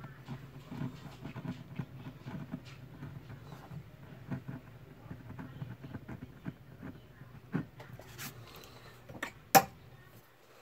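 A small blade cutting into a lino block: a run of small scratchy clicks over a low steady hum, with two louder sharp clicks near the end, the last the loudest.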